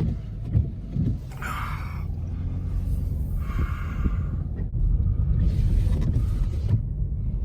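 A car driving, heard from inside the cabin: a steady low rumble, with two brief hisses about one and a half and four seconds in.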